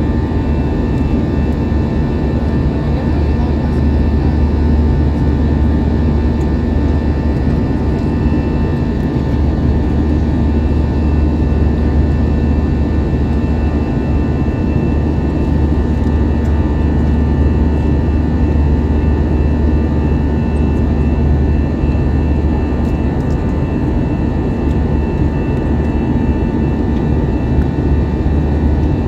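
Airbus A321 jet engines heard from inside the passenger cabin in flight: a steady low drone with several steady whining tones over it, unchanging throughout.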